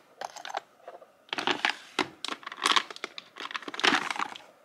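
Small pots of nail chrome powder being handled and shifted about in a desk organizer drawer: several short rustling, scraping bursts.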